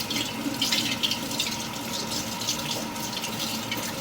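Water running from a tap, an uneven rushing hiss, with a faint steady hum underneath.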